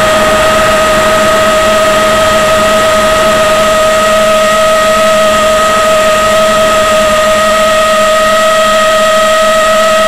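Electric motor and propeller of an FPV model plane running at a steady throttle, a constant high whine over a rushing hiss, recorded by the onboard camera.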